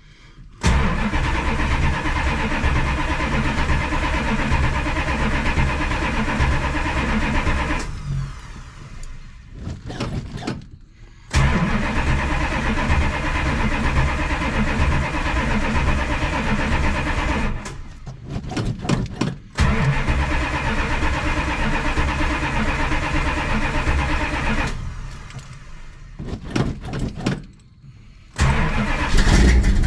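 Starter cranking the 1968 Dodge Charger's V8 over in long bursts, four times with short pauses between, the last beginning near the end, to draw fuel into a freshly installed Demon carburetor that is still dry.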